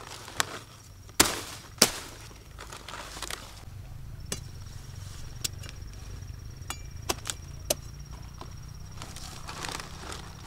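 A few sharp knocks or chops, three louder ones in the first two seconds, the loudest about a second in, followed by fainter, irregular clicks.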